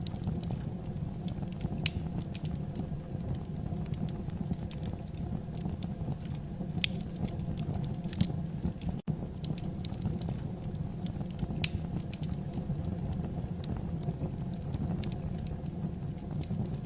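Wood fire burning in a fireplace: a steady low rumble of the flames with scattered sharp crackles and pops from the burning logs. The sound cuts out for an instant about nine seconds in.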